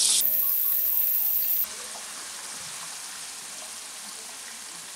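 Freshly added raw jackfruit slices deep-frying in hot oil, a steady sizzle, still bubbling hard because the slices are moist. Background music plays over the first second and a half and then stops, leaving the quieter sizzle alone.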